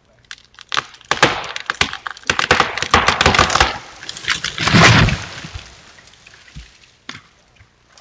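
A tree falling: its trunk cracks and splinters in a fast run of sharp snaps for about three seconds as it goes over, then it crashes heavily to the ground about five seconds in, the crash dying away over a second.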